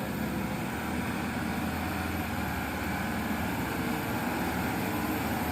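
Hino Dutro light truck's diesel engine running as the truck drives slowly past, a steady low drone that grows a little louder near the end.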